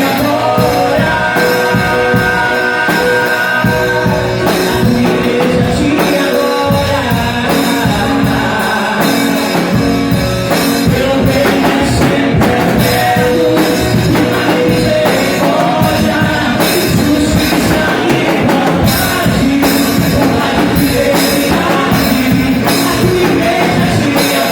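Worship band playing a song: singing over a drum kit and other instruments.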